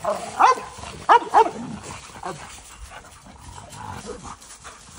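American Bulldogs barking: a loud bark about half a second in and two more just after a second in, followed by a few fainter barks.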